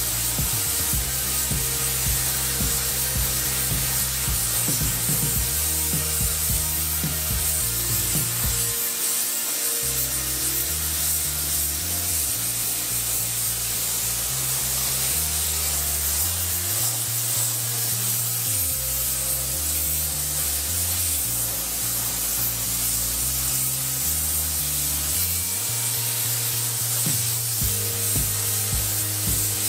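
Background music with a stepping bass line over the steady hiss of a gravity-feed paint spray gun spraying paint.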